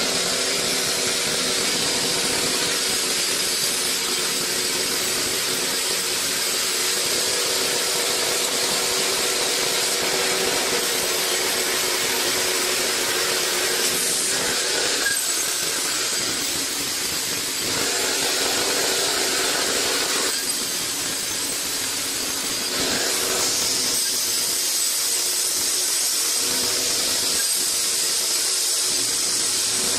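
A large vertical band saw rips lengthwise through a log: a steady, loud sawing noise of the blade in the wood over the running machine, shifting slightly in tone several times.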